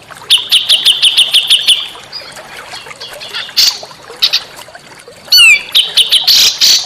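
Small songbirds calling and singing: a quick run of about a dozen high repeated chirps in the first two seconds, scattered single calls, then a rapid series of falling whistled notes about five seconds in, followed by more chirping.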